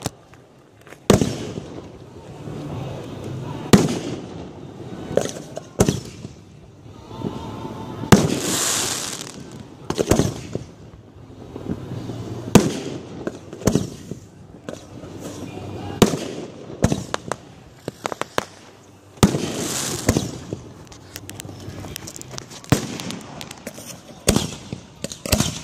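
Aerial firework shells launching and bursting, about a dozen sharp bangs spaced a second or a few seconds apart, with longer hissing rushes from rising comets or crackling bursts about a third of the way in and again past the middle.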